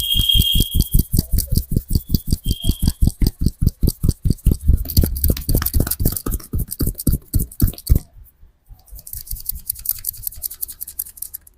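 Rapid rhythmic hand strikes of a barber's percussive head massage, about six a second, stopping about eight seconds in. A softer rustling hiss of hands rubbing follows.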